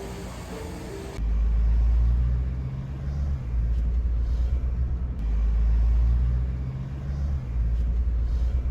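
Music cuts off about a second in, giving way to a deep vehicle rumble that swells and eases twice, with a low hum coming and going above it.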